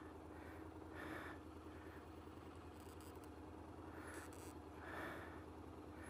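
Faint, steady low hum of a motorcycle engine idling, heard very quietly.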